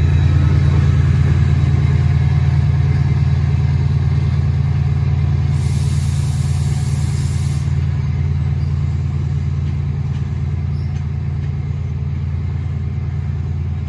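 Class 68 diesel locomotive's Caterpillar V16 engine running as it draws away, a steady low drone that slowly fades. A brief hiss lasting about two seconds comes about halfway through.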